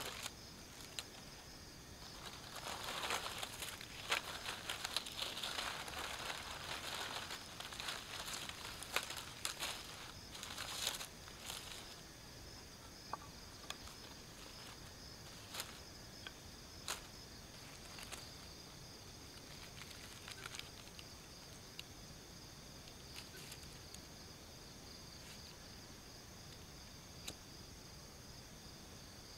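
Dry firewood and kindling sticks being handled and stacked by hand: a thick run of rustling, clattering and sharp woody clicks for the first ten seconds or so, then only scattered taps. Crickets trill steadily at two high pitches underneath.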